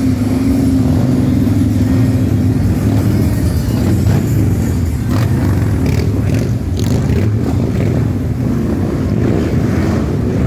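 Several Harley-Davidson V-twin touring motorcycles running at low speed as they roll past in a line, a loud, steady low engine sound.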